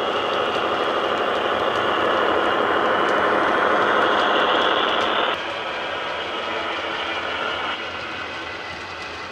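A Paxman VP185 diesel engine sound played by a DCC sound decoder through the upgraded speakers of a Hornby HST model power car as it runs past. The steady engine running sound drops in level about five seconds in and again near eight seconds.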